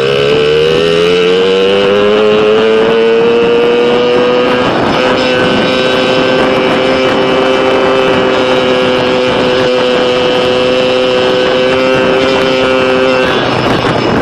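Pit bike's small single-cylinder engine pulling under throttle while being ridden. Its pitch climbs over the first few seconds as the bike speeds up, holds steady, then falls off near the end as the throttle is eased.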